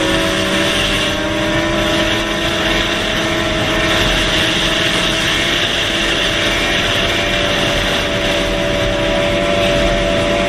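Vehicle engine running steadily at highway speed, its note rising slightly and then holding, under road and wind noise.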